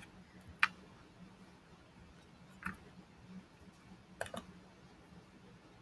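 A few short computer mouse clicks: one about half a second in, one midway and a quick pair about four seconds in, over quiet room tone with a faint low hum.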